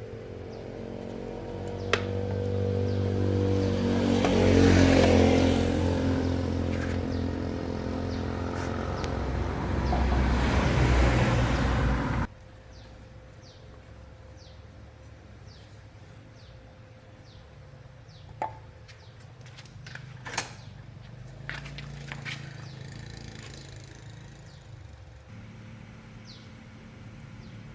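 A motor vehicle engine running, its pitch and level rising and falling, then cutting off abruptly about twelve seconds in. After that, quieter scattered clicks and knocks.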